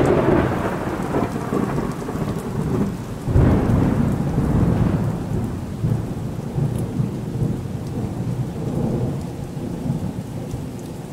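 Thunderstorm: thunder rumbling over steady rain, with one peal at the start and a second about three seconds in, each fading away.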